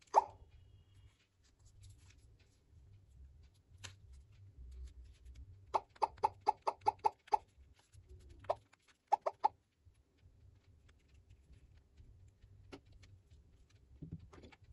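Nokia 2660 Flip keypad: a quick run of about eight short key-press beeps about six seconds in, then a few more around nine seconds, with a sharp click at the very start.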